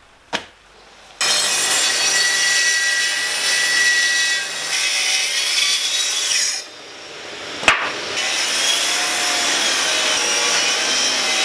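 Festool plunge track saw cutting across the end of a thick glued-up softwood tabletop. The cut starts about a second in, with a faint high whine from the blade. Partway through it drops off briefly with a sharp knock, then the saw cuts again.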